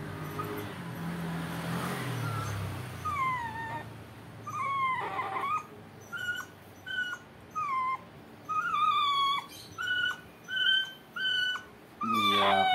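Sedated puppy whimpering under ear-cropping surgery: a run of short, high whines, each bending down in pitch, about one to two a second, with a louder, lower cry near the end. The vet puts the crying down to the puppy being a crier, not to it waking up.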